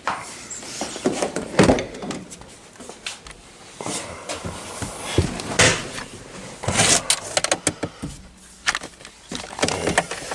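Irregular knocks, clicks and rustling from someone moving about inside a vehicle's cab and handling things, with a few louder thumps.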